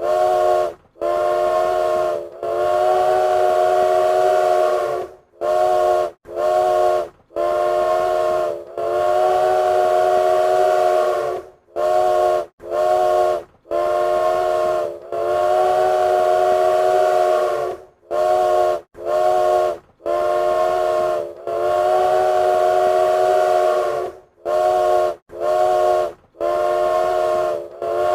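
Train whistle sounding a chord of several tones in repeated blasts. Each round is a few short toots followed by a long blast of two to three seconds, and the pattern repeats several times.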